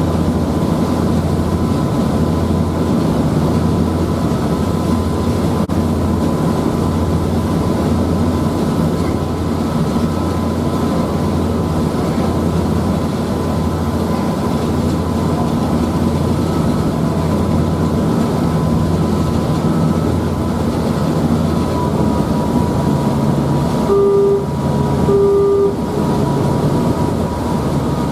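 Passenger ferry's engine droning steadily, heard from on board, with a thin steady whine above it. About 24 seconds in, two short beeps sound a second or so apart.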